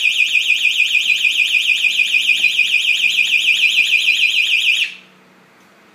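Home intruder alarm siren sounding a high electronic tone that warbles rapidly up and down, set off by a door contact opened without the access card. It cuts off abruptly about five seconds in as the system is disarmed.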